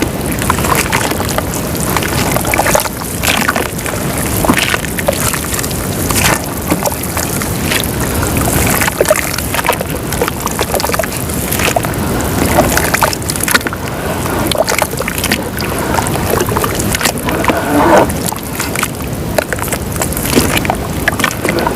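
Lumps of white dirt crumbling and dissolving in water, with a constant fizzing, sloshing wash dotted with many small sharp cracks and plops.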